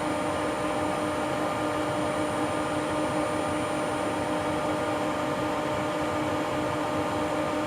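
Steady whir with a low hum from the running car-amplifier test bench, its power supply and cooling fans running under load during a dyno power run.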